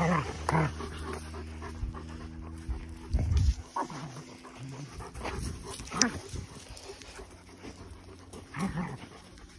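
A dog panting close by, with a low thump about three seconds in.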